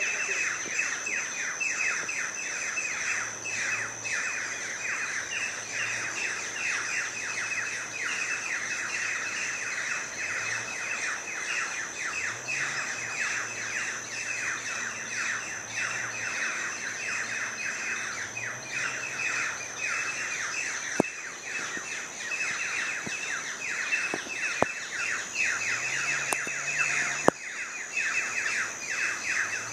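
A dense chorus of many birds chirping and chattering without pause, rapid overlapping falling chirps, over a steady high-pitched whine.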